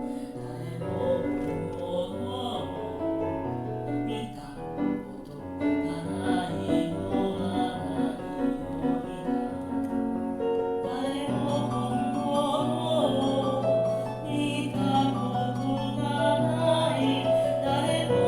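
A choral song sung by a single singer overdubbing all the voice parts, the layered voices holding sustained notes together in harmony.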